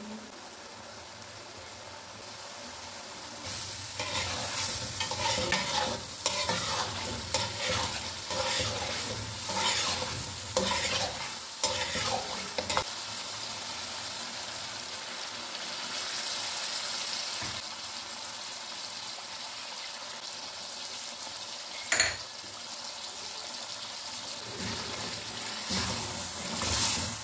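Beef curry sizzling in a metal pot while a ladle stirs and scrapes through it in irregular strokes. About halfway through, beef stock goes in and the sound settles into a steadier simmer. There is a single sharp metallic knock about 22 seconds in, and more stirring near the end.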